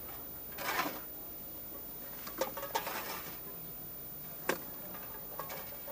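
Steady background hiss with a few scattered short clicks and knocks. There is a brief scraping burst about three-quarters of a second in, a small cluster of clicks a little past two seconds, and one sharp click about four and a half seconds in.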